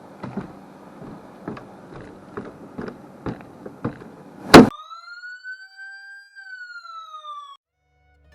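Light scattered knocks, then a sharp bang about four and a half seconds in. Right after it a clean siren-like tone rises, then slowly falls for about three seconds and cuts off abruptly.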